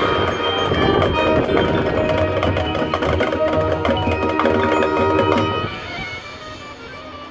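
Marching band playing its field show: sustained wind chords over drums and percussion. About six seconds in the music drops to a much softer passage.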